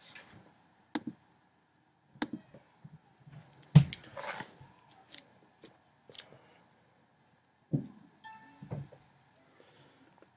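Scattered sharp clicks and light knocks from a computer mouse being clicked and handled on a desk, with a short pitched beep about eight seconds in.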